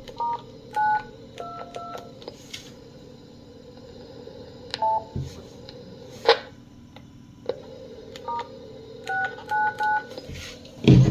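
DTMF tones keyed on an Alinco ham handheld radio's keypad, entering a command to an AllStar node to turn parrot mode off. The short dual-tone beeps come in clusters, with clicks, a brief burst of noise about six seconds in, and steady radio background hiss between them.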